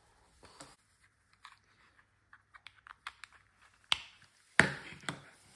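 Small clicks and rustle of hands handling a plastic Octopus Home Mini and pushing its charging cable's plug into the socket, with a sharper click about four seconds in and a few louder knocks just after.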